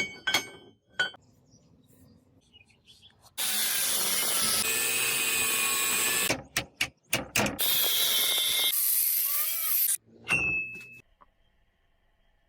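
Metalworking in a forge shop: two sharp hammer strikes on metal with a ringing tone, then a power tool running loudly for a few seconds, a quick run of knocks, and the power tool again. A last ringing hammer strike comes near the end.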